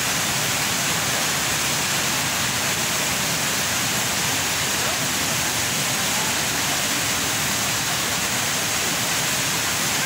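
The Rain Vortex, a tall indoor waterfall pouring down as a column of water into a pool, gives a steady, even rush of falling water.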